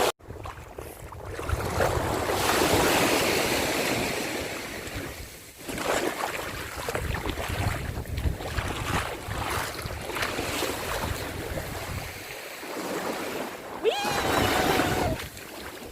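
Sea waves washing onto the shore, swelling and easing, with wind buffeting the microphone.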